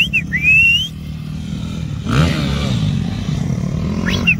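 Small dirt bike engine running, revving up and back down about two seconds in. High gliding whistles sound briefly near the start and again near the end.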